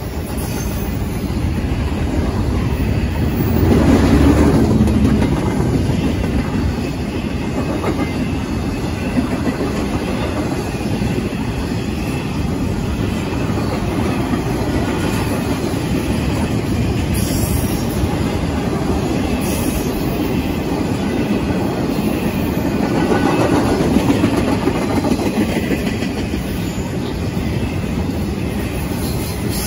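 Intermodal freight train of flatcars and spine cars carrying truck trailers rolling steadily past, a continuous noise of steel wheels on rail. It swells louder about four seconds in and again about two-thirds of the way through.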